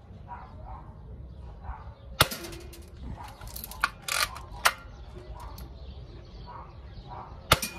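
Lever-action BB rifle (Mendoza Vaquero) firing: a sharp snap of a shot about two seconds in, the lever worked with a short rattle and click around four seconds, and a second shot near the end.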